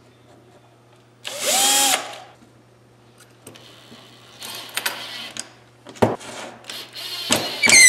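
Cordless drill running in two short bursts at a steel hinge on an MDF cabinet door, about a second in and near the end, its pitch rising as the motor spins up each time. A sharp knock about six seconds in.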